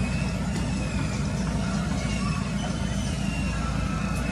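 A steady low engine rumble, with faint high whistles or chirps above it.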